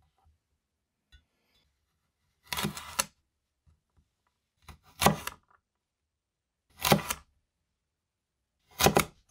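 Stainless steel vegetable cleaver chopping down through a stack of carrot sticks onto a wooden cutting board, dicing them into cubes. There are four chops, about two seconds apart.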